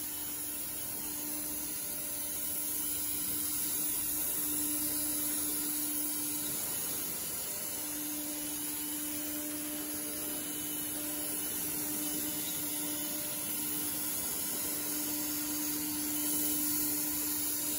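Dual-head woodworking CNC router running, its two 4.5 kW air-cooled spindles giving a steady high hiss with a hum underneath that grows stronger for long stretches.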